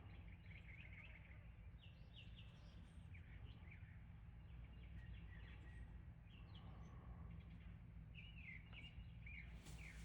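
Near silence outdoors: a faint steady low rumble with scattered small bird chirps, and a brief rustle just before the end.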